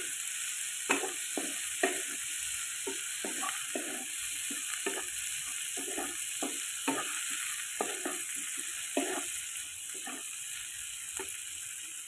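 Sliced chillies, shallots and garlic sizzling in hot oil in a non-stick wok, stirred with a spatula that scrapes and knocks against the pan repeatedly over the steady sizzle.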